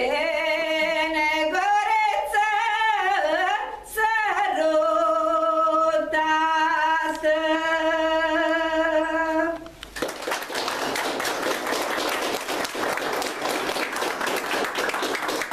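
A woman singing a Maramureș folk song unaccompanied, with a wavering voice, ending on a long held note. Just under ten seconds in the song ends and the audience breaks into steady applause.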